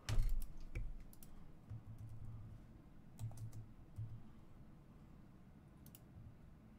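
Irregular typing on a computer keyboard: scattered sharp key clicks with soft low taps, the loudest a sharp knock right at the start.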